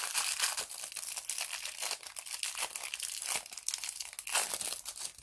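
Packaging crinkling and rustling as it is handled, a dense continuous crackle that stops abruptly near the end.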